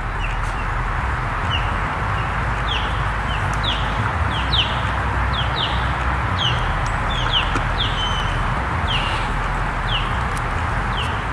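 A small bird chirping over and over, short high downward-sliding chirps about one or two a second, over a steady background hiss and low rumble.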